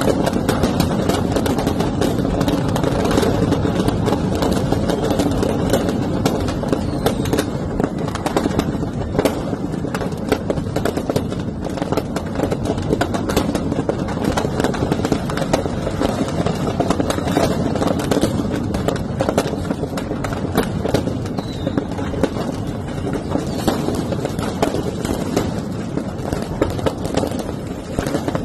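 Stock of firecrackers burning in a shop fire and going off together: a continuous, dense crackle of rapid small bangs over the noise of the blaze.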